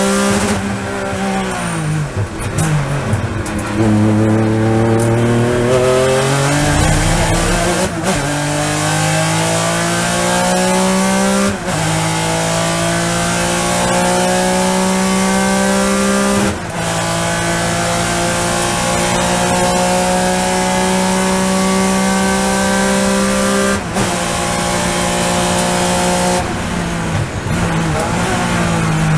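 Racing car's Fearnsport-built engine at full throttle, heard from inside the cockpit. The revs dip and climb again, then it pulls up through the gears with four quick upshifts, the pitch rising steadily between each. Near the end the revs fall away as the car lifts off and brakes.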